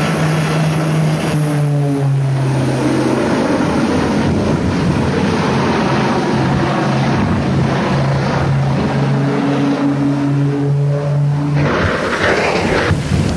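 Twin propeller-driven airplane's engines droning loudly and steadily: a low hum under a rushing noise. Near the end a harsher, brighter noise rises briefly.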